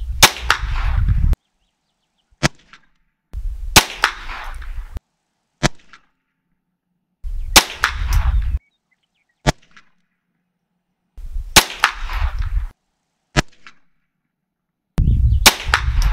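.22LR scoped rifle fired five times, slow aimed shots about four seconds apart, each shot a sharp crack. A fainter short click follows each shot about a second and a half later.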